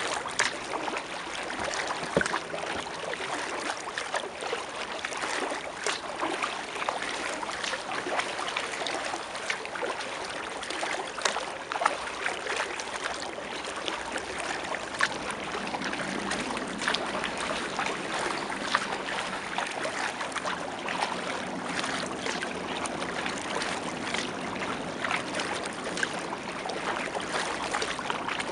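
Water splashing and trickling around a kayak as it is paddled, with many small irregular splashes and drips over a steady wash of water.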